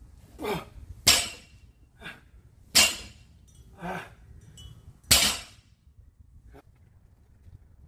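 Loaded barbell plates clanking three times during lifting reps, the last as the bar is set down on the concrete floor, with the lifter's sharp exhales between.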